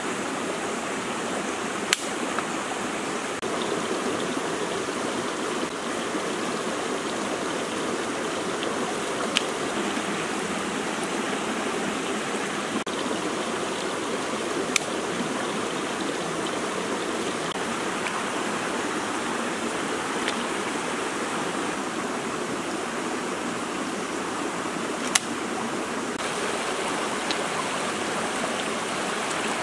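Shallow stream running over rocks: a steady, even rush of water. About six sharp clicks sound now and then over it.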